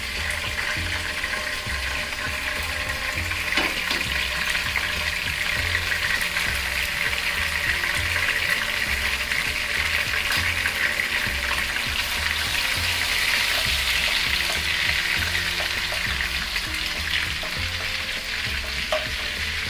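A tablespoon of butter melting and sizzling in hot frying oil in a pan, a steady frying hiss.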